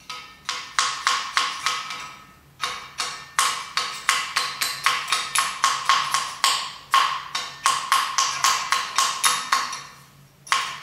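Rapid run of sharp metallic clicks, about five or six a second, from a hand tool working on a steel crankshaft; each click rings on briefly in the crankshaft. The run is broken by two short pauses.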